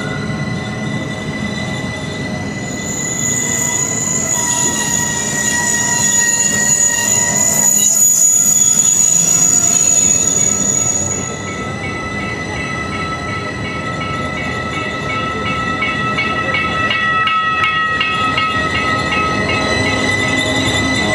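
Rhaetian Railway Bernina Line train running slowly, its wheels squealing with several steady shrill tones over the rolling rumble. The squeal is loudest in the middle and eases off at about the halfway point. A rapid repeating ringing joins in near the end.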